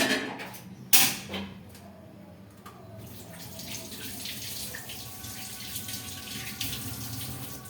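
A utensil clanks once about a second in, then a kitchen tap runs steadily into a sink from about three seconds in.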